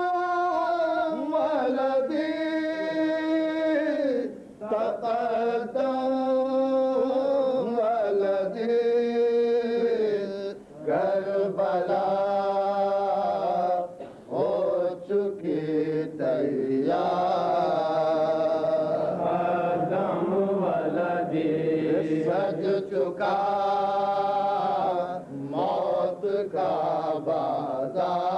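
Men's voices chanting a noha, a Shia lament, together in long held melodic lines, with a few short breaks.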